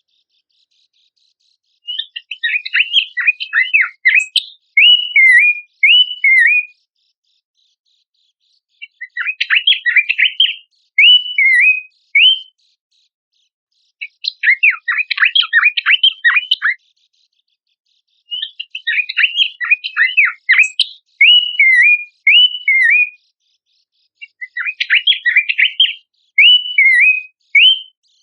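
Pelanduk semak babbler singing, played as a lure recording: five repeated song phrases, each a fast chattering run followed by a few short slurred whistles, with silent pauses of a few seconds between phrases.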